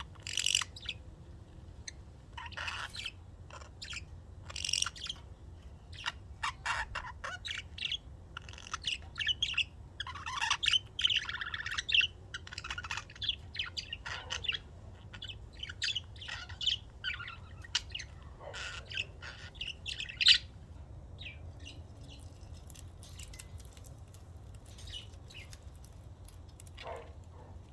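A flock of budgerigars chirping and chattering in many quick, short calls, thinning out after about twenty seconds.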